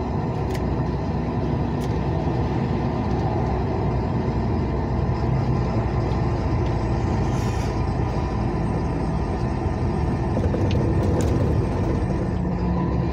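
Steady engine and tyre noise heard from inside a moving vehicle's cab while driving on a highway, with a few faint ticks.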